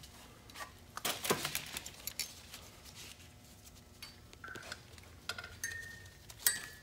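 Steel brake parts clinking and clanking as they are handled: a few sharp knocks about a second in, then several short, ringing metallic clinks in the second half.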